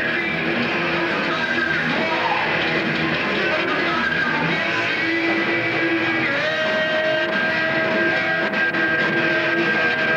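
A rock band playing live: electric guitar through amplifiers over drums, loud and continuous, with a long held note from about six seconds in.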